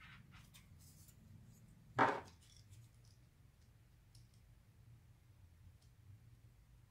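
Light handling of a graphics-card fan shroud and its cable, small plastic clicks and rustles, with one short, sharp click or snap about two seconds in.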